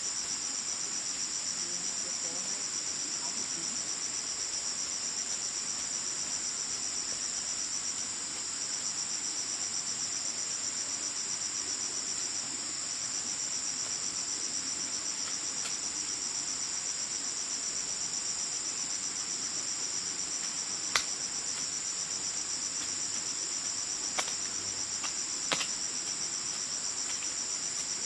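Steady, finely pulsing high-pitched chorus of insects, such as crickets, with a few sharp clicks or knocks late on.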